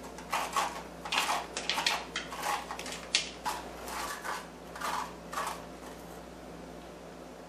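The stringy pulp and seeds being scraped out of a halved spaghetti squash: a quick, irregular run of short scraping strokes that stops about two-thirds of the way through.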